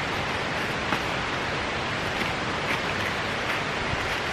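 A steady hiss of background noise, with a faint click about a second in.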